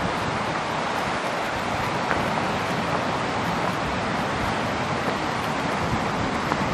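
Steady rush of a fast mountain river running over rocks.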